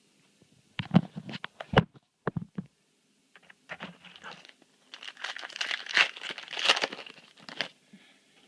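Foil booster pack wrapper crinkling and being torn open, after a few sharp clicks and taps in the first seconds.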